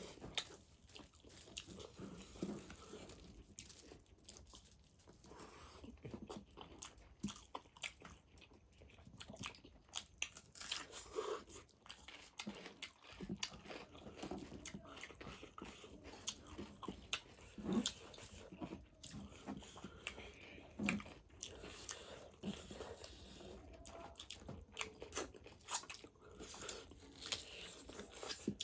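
A person chewing and biting pork feet close to the microphone, with wet chewing and irregular sharp clicks and crunches.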